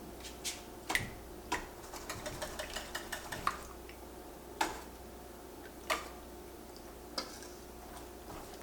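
Kitchen utensils clinking against dishes: single sharp clinks a second or so apart, with a quick run of light taps about two seconds in.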